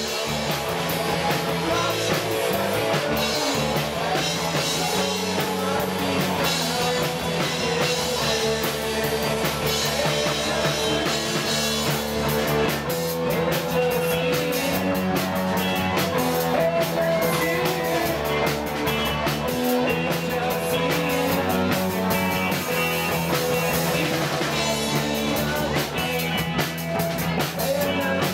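Live rock band playing: electric guitars, electric bass and drum kit, loud and steady.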